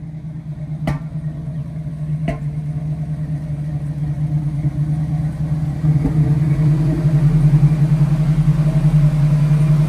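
A car engine running steadily, growing louder and loudest from about six seconds in, with two sharp clicks about one and two seconds in.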